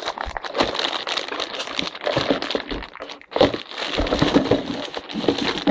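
Plastic packaging crinkling and rustling, with many small clicks and knocks, as the parts of a new air brad nailer kit are unpacked and handled.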